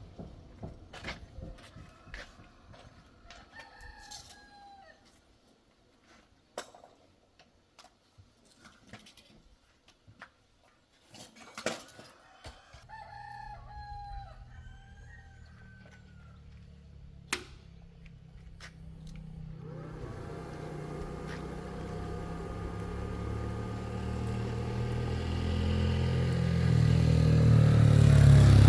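A rooster crows a couple of times amid scattered light clicks and taps. About halfway through, an engine starts running and grows steadily louder towards the end.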